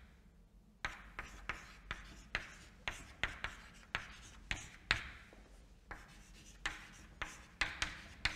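Chalk writing on a chalkboard: a run of sharp taps and short scratching strokes as letters are written, starting about a second in.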